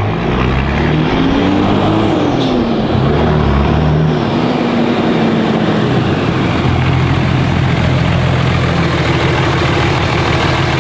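A 2007 Dodge Ram's 5.9 Cummins turbo-diesel is heard as the truck drives in. The engine pitch rises and falls over the first few seconds, then settles to a steady idle about six seconds in.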